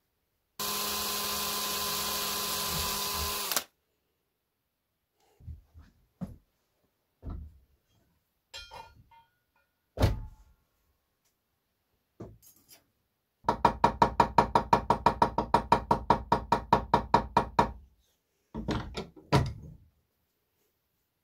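A small power tool runs steadily for about three seconds and stops abruptly, followed by scattered knocks of tools and workpiece on the bench. About halfway through comes a rapid, even run of taps, about seven a second, lasting some four seconds, then a few more knocks.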